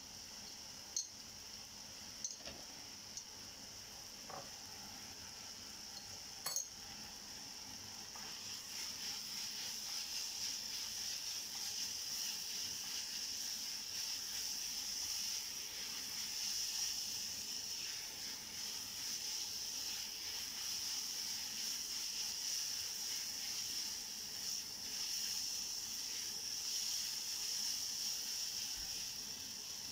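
Sliced onions and ginger-garlic paste frying in oil in a pan, sizzling steadily, getting louder about eight seconds in as they are stirred with a spatula. A few light clicks in the first several seconds.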